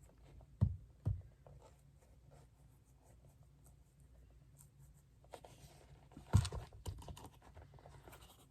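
Hand work at a shoe-repair bench: two soft thumps half a second apart about a second in, then a short run of taps, clicks and scraping a little past the middle, as leather and tools are handled.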